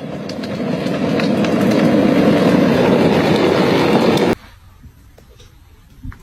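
A loud rushing rumble builds over the first second, holds steady, then cuts off abruptly a little past four seconds in, leaving only faint scattered sounds.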